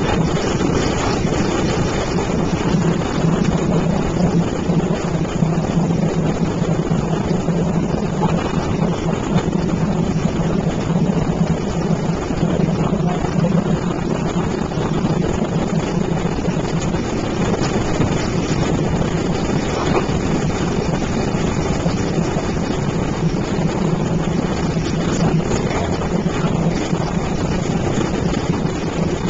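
Boat motor running at a steady speed as the boat moves through the marsh, an even drone with wind buffeting the microphone.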